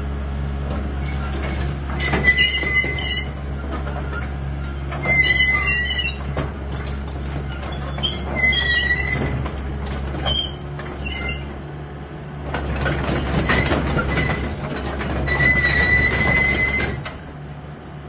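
Komatsu PC60 mini excavator's diesel engine running steadily while its hydraulics work the boom, bucket and blade, with short high squeals every few seconds as the machine moves. The level dips near the end.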